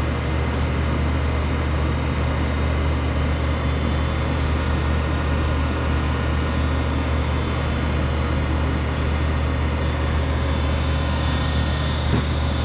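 A charcoal forge's air blower and a torch flame run together as a steady rushing noise with a low hum while the torch lights the charcoal. There is a short click near the end.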